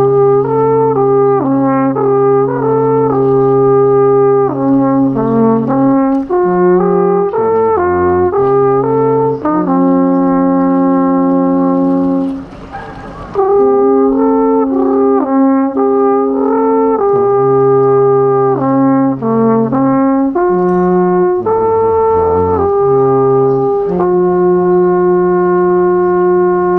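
Alphorns playing a slow melody in harmony, long notes moving over a sustained low note. The playing breaks off briefly about halfway through, then resumes and ends on a long held chord.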